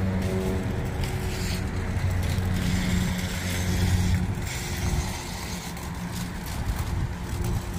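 Parking-lot ambience: a steady low hum like a running engine. In the second half it gives way to a rougher rattling noise that fits a loaded shopping cart's wheels rolling over asphalt.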